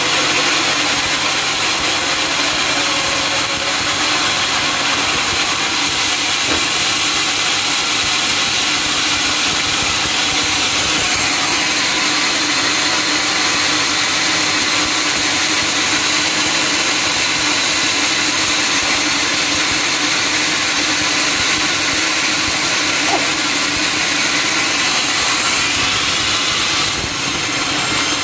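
Sawmill saw and its engine running steadily, a continuous loud mechanical noise with a faint whine.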